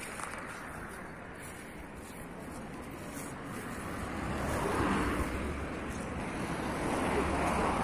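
Road traffic crossing a bridge: a steady rumble that grows louder about four seconds in as a vehicle passes, with some wind on the microphone.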